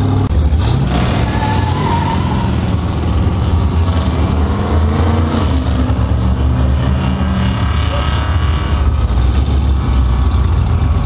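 A Model A Ford hot rod's engine, heard from inside the cab while driving slowly. The revs climb about half a second in, rise and fall again around five seconds in, then settle into steady low-speed running.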